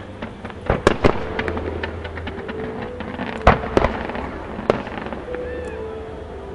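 Fireworks display: aerial shells and gold comets going off in a quick run of sharp bangs over a continuous crackle, with the loudest reports about a second in, twice around three and a half to four seconds, and again near five seconds.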